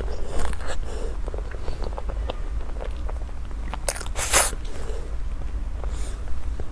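Close-miked eating sounds: small wet mouth clicks and chewing, with one louder bite or crunch about four seconds in, over a steady low hum.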